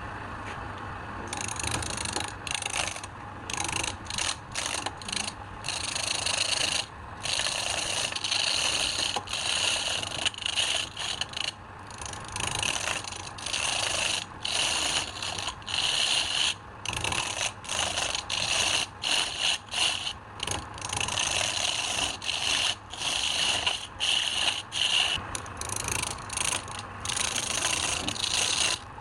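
A woodturning tool scraping wood on a lathe: a hissing scrape that starts about a second in, then breaks off and resumes over and over, roughly once a second, over a low steady hum.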